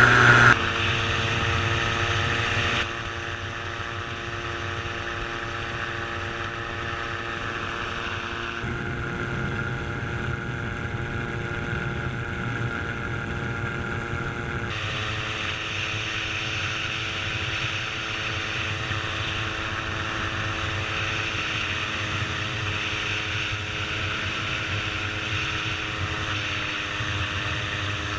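Gyroplane engine and propeller running steadily in flight, recorded onboard with wind rush. The engine note steps to a slightly different pitch several times at cuts in the footage.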